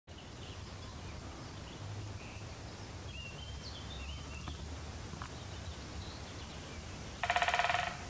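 Great spotted woodpecker drumming on dead wood: one fast roll of knocks lasting under a second, near the end. Faint chirps from a small songbird come before it.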